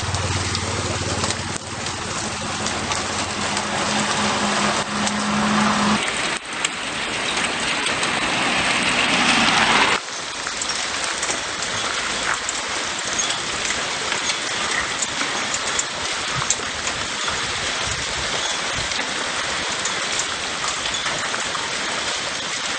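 Small volcanic stones and ash from an Etna eruption falling on pavement, roofs and cars: a dense, steady patter much like heavy rain. A low hum lies under it for the first six seconds, and a rushing hiss builds until it cuts off suddenly about ten seconds in.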